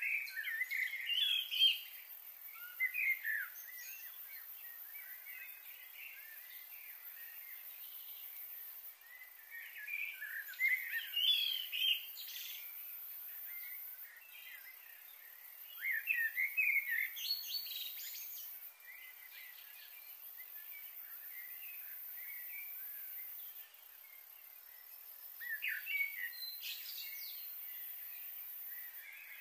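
Bird calls: short bouts of quick chirping notes that come back about every eight seconds, over a steady background hiss.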